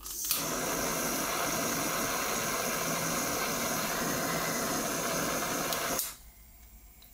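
Handheld gas blowtorch lit with a click just after the start, burning with a loud, steady hiss for about six seconds, then shut off with another click.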